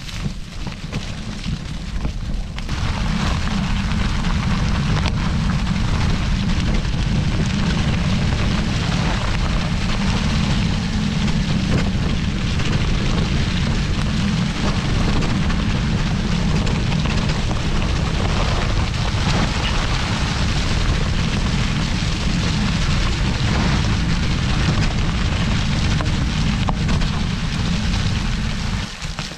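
Wind rumbling over a GoPro's microphone, with the crackle of mountain bike tyres rolling over dry fallen leaves. It gets louder about two and a half seconds in and eases off just before the end.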